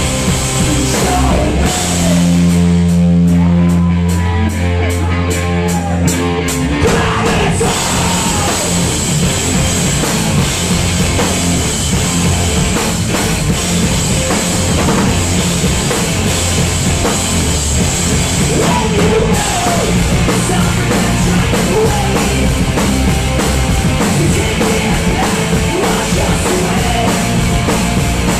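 Punk rock band playing live and loud: distorted electric guitars, bass and a drum kit. About two seconds in, the band lets a chord ring for a few seconds, then the full band with drums kicks back in.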